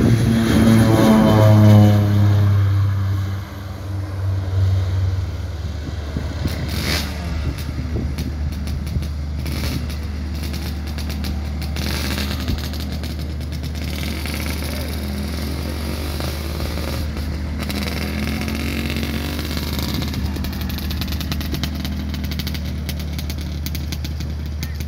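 Twin-engine propeller plane at takeoff power passing close by, its engine pitch falling over the first few seconds as it goes past, then a steadier, more distant drone as it climbs away.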